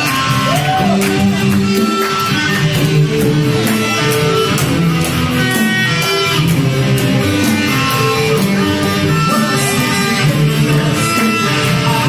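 Live rock band playing an instrumental passage: electric guitar over a drum kit and keyboard, with regular drum strokes.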